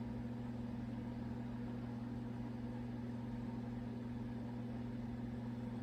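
Steady low hum of room background noise, with no other sounds.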